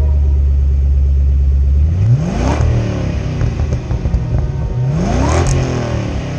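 2008 Roush Blackjack Mustang's supercharged V8 idling through its stock Roush cat-back exhaust with mufflers, then revved twice, about three seconds apart. Each rev rises quickly and drops back to idle.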